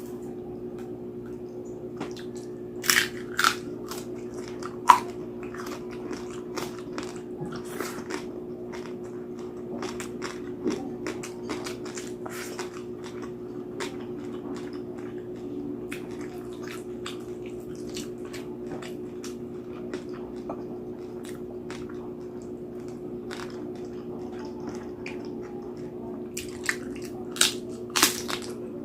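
Close-up biting, crunching and chewing of crispy roast pig (lechon) skin and meat, with sharp crackles that are loudest about three seconds in and near the end. A steady low hum runs underneath.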